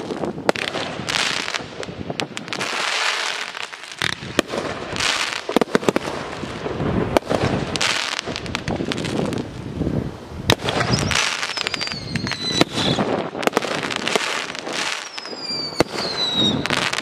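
Aerial fireworks display: a rapid, continuous string of shell launches and bursts with crackling. In the second half, two whistles fall in pitch.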